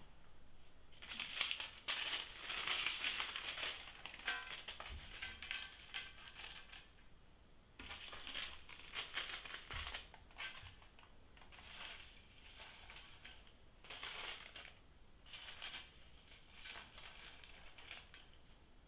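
Parchment (baking) paper crinkling and rustling in irregular bursts as it is handled and pressed against the inside of a round metal cake tin. The crinkling runs almost continuously for the first several seconds, then comes in shorter handfuls.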